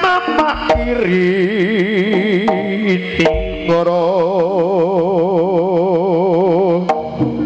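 Javanese gamelan music for a jaranan dance. A long melodic note with strong vibrato is held twice, broken by a drum stroke, with short struck tones and drum strokes at the start and near the end.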